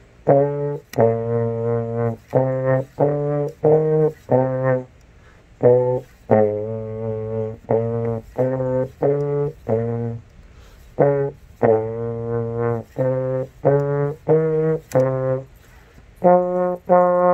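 Plastic pBone trombone playing a slow syncopated beginner exercise in B-flat with accents on beat 2: a line of separate short and held notes, broken into phrases by brief rests.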